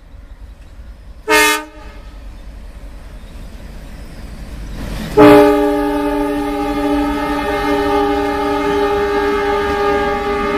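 Horn of a WDM-3D diesel locomotive: one short toot about a second in, then a long, unbroken blast from about five seconds in that carries on past the end.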